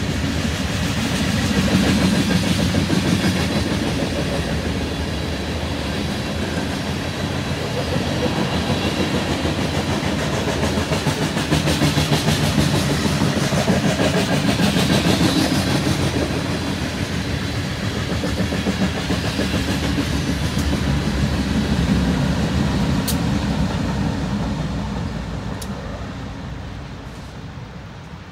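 BNSF freight train of covered hopper cars rolling past close by, a steady rumble and clatter of wheels on the rails. The sound fades over the last few seconds as the end of the train passes and moves away.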